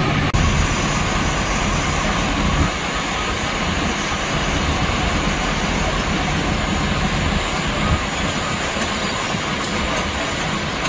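A fire appliance's engine and pump running with a steady, even roar. There is a brief break about a third of a second in.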